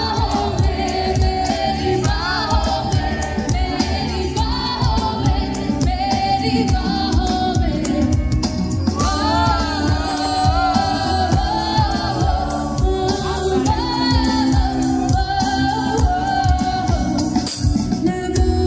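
Live band music: a woman singing into a microphone over electric guitar, bass guitar and a steady drum beat, played loud through a PA system.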